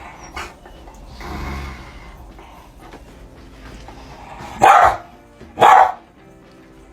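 A dog barks twice, two short loud barks about a second apart.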